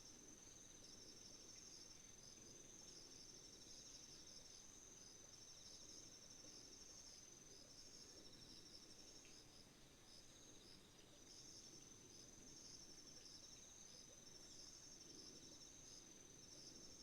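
Faint chorus of autumn singing insects: a steady high trill, with trains of pulsed chirps repeating every second or two, and a softer lower trill beneath.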